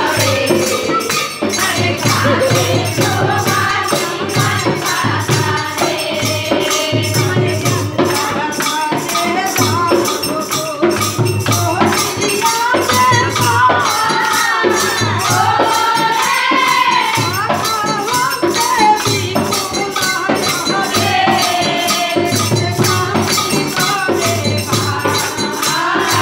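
Kirtan devotional singing: voices chanting a melody over hand cymbals struck in a steady, fast rhythm and the deep beats of a khol barrel drum.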